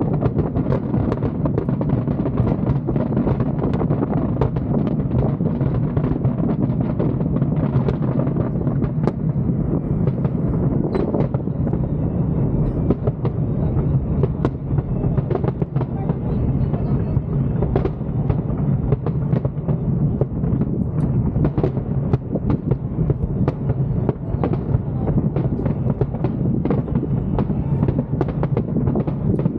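Fireworks display in full swing: a continuous barrage of shell bursts, with many sharp bangs and crackles over a steady low rumble.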